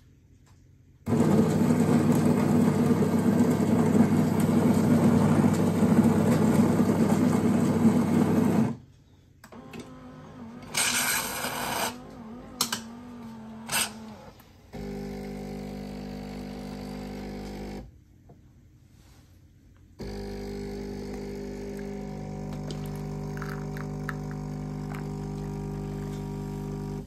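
Cecotec Wi-Fi bean-to-cup coffee machine making a drink. Its grinder runs loudly for about eight seconds, then come a short hiss and a few clicks. The pump then hums steadily in two stretches as the coffee and milk are dispensed.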